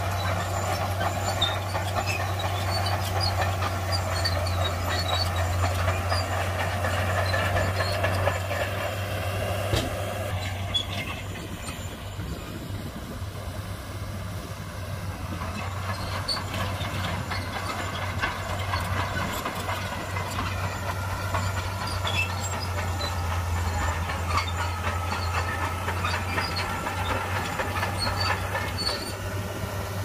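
Heavy diesel earthmoving machinery running: a steady low engine hum with scattered light clicks and rattles. The sound drops a little about ten seconds in.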